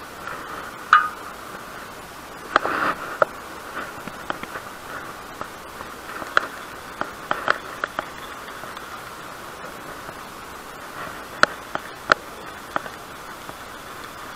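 Steady hiss with scattered sharp clicks and taps from handling fishing tackle: a baitcasting reel, line and bait. There is a brief rustling burst about two and a half seconds in.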